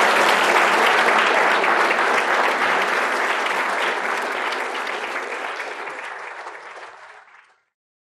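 Audience applauding, steady at first, then fading away near the end.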